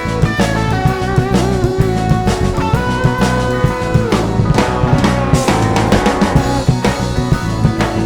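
Instrumental rock music: a lead guitar playing held and bending notes over a steady drum kit and bass.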